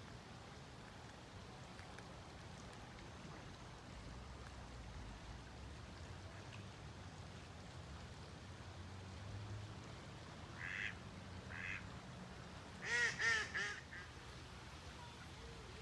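A bird calling over a steady low background noise: two short calls, then a quick run of four louder, nasal-looking calls near the end.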